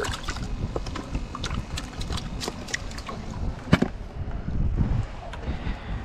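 Hand reaching into an aerated bait box of live shrimp: quick clicks and small splashes of water and handling, with one sharp knock a little under four seconds in, over wind buffeting the microphone.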